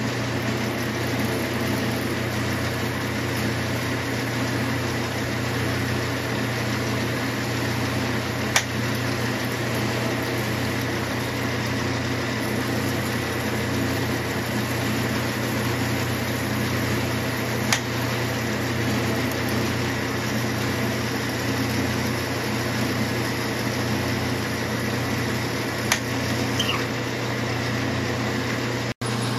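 Metal lathe running at about 400–500 RPM while a 5/8-inch twist drill, fed by the carriage power feed, bores into aluminium: a steady machine drone with three short sharp clicks about nine seconds apart.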